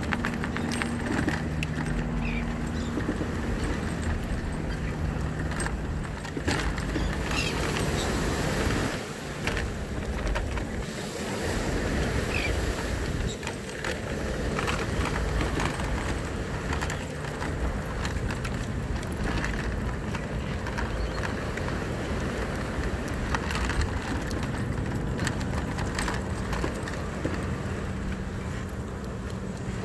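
Scooter rolling along the wooden pier deck: a steady low rumble with a faint steady hum and many small rattling clicks as it crosses the boards.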